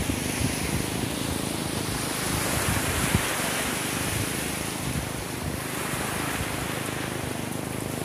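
Small waves washing onto a sandy beach in a steady wash of surf, with some wind on the microphone.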